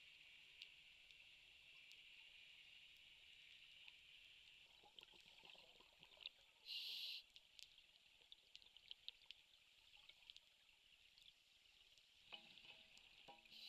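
Faint underwater crackle with scattered clicks, broken by a short hiss about seven seconds in and a brief faint tone near the end.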